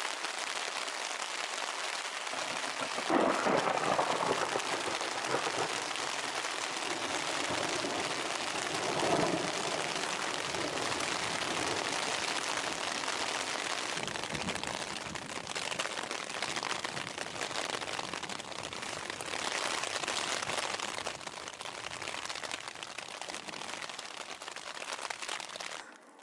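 Rain falling on a tent's fabric, heard from inside the tent: a dense, steady hiss that grows briefly louder about three seconds in and again around nine seconds.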